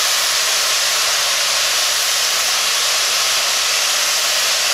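Natural gas venting under pressure from a Marcellus gas well's pipework: a loud, steady hiss. The venting sounds like it is building up again.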